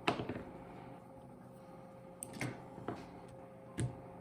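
A few light, separate clicks and knocks of hand tools and metal connector parts being handled while the new welding cable connector is set up to be screwed tight: one at the start, two a little past two seconds, and one near the end.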